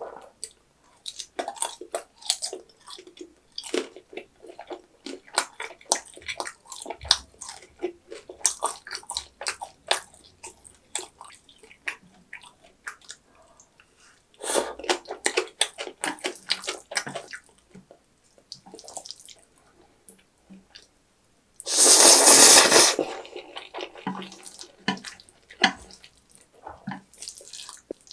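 Close-miked wet chewing and mouth smacking of black-bean-sauce instant noodles and a kimchi dumpling, with a run of slurps about halfway and one long, loud noodle slurp about three-quarters of the way through.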